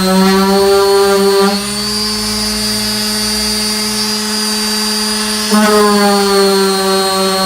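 Electric sander with a 240-grit disc running, sanding body filler: a steady motor whine whose note dulls about a second and a half in and brightens again with a short jump in level near the end.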